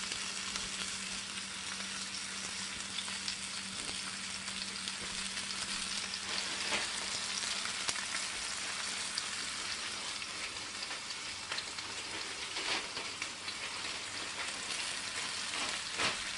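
Chuck roast searing in butter in a braising pan: a steady sizzle, with a few sharper pops of spattering fat.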